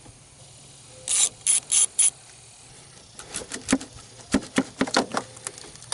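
Socket-wrench ratchet clicking in four quick bursts as the 10mm nut on the positive battery terminal clamp is loosened, followed by scattered light metallic clicks and knocks.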